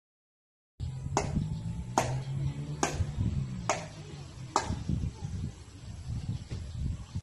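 A drum struck with drumsticks five times, about one sharp hit a second, over a low steady rumble.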